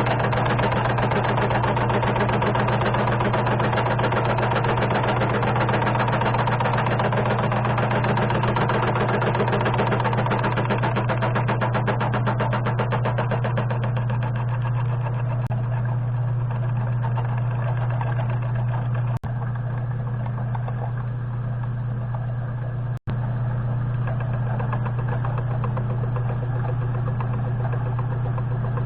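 A metalworking machine tool running steadily, its motor giving a strong hum, while taking a light cut in a 4140 steel block. The cutting noise above the hum thins out about halfway through, and the sound drops out briefly twice near the middle.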